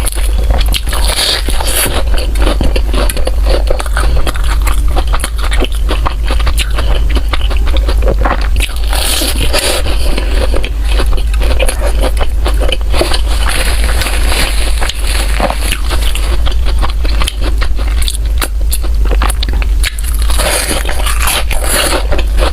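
Close-miked mukbang eating: biting and chewing bread, with dense, irregular crackly mouth and crumb noises over a steady low hum.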